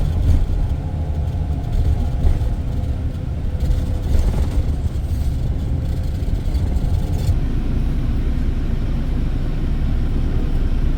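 Tour coach driving, heard from inside the cabin: a steady low rumble of engine and road noise.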